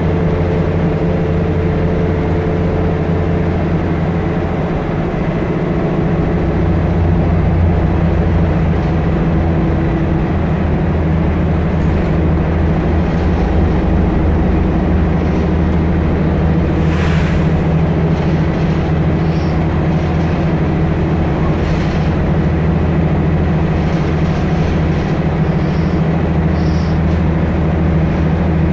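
Volvo single-deck bus running, heard from inside the cabin: a steady engine drone with road noise that grows a little louder about six seconds in. A short hiss comes about seventeen seconds in.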